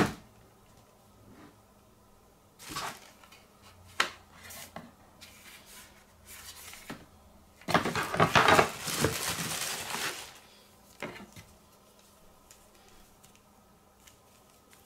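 Unboxing handling sounds: a plastic charger brick and its cables knocked, tapped and set down against a cardboard box, with scattered clicks and a loud stretch of scraping and rustling from about eight to ten seconds in.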